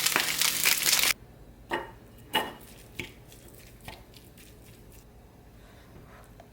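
Food sizzling in a frying pan, which cuts off abruptly about a second in. After that the room is quiet apart from four or five light clicks and knocks, about one a second.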